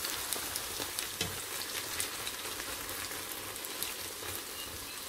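Shredded cabbage and beaten egg omelette mixture sizzling and crackling in hot oil in a frying pan.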